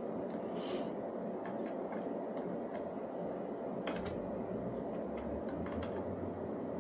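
Small, irregular ticks and clicks of a screw being handled and started by hand into the mounting bracket of a pad on an electric unicycle, over a steady background hum that deepens about four seconds in.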